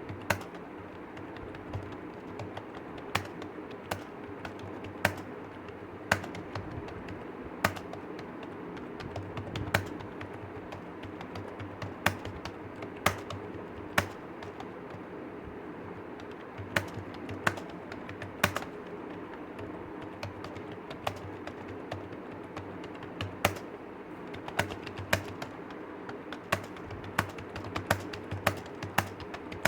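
Typing on a computer keyboard: irregular key clicks, with a scattering of much louder strikes, over a steady background hum.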